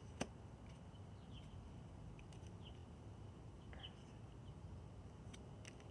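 Near silence: quiet room tone with a single light click shortly after the start, likely a card being handled, and a few faint, short, high chirps.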